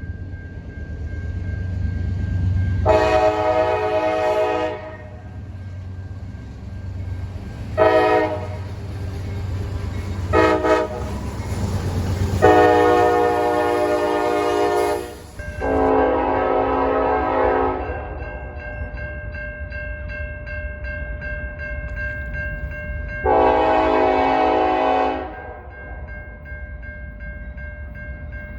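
Locomotive air horns sounding a series of blasts: a long blast, two short ones and a longer one over the low rumble of a train. Then, after a break in the background, two more long blasts.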